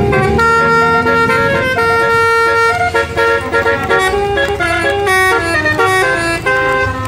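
Indonesian bus 'telolet' horn, a multi-tone musical (basuri) air horn, playing a tune: a long held note, then a quicker run of notes that step up and down in pitch.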